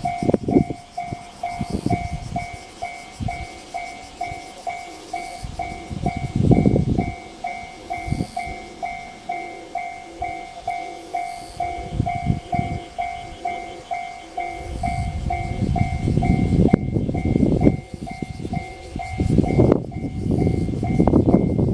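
Japanese railway level-crossing warning bell ringing its electronic two-tone clang steadily, about two strikes a second, the signal that a train is approaching. Gusts of low rumbling noise break in throughout, and a heavier low rumble builds over the second half.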